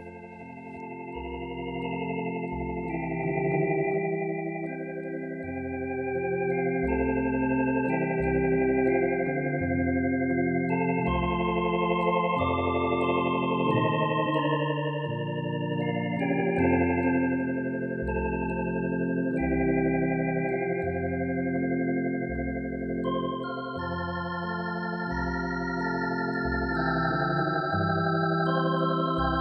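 Organ playing a slow hymn: held chords over a bass line that steps to a new note every second or two. It swells in over the first few seconds.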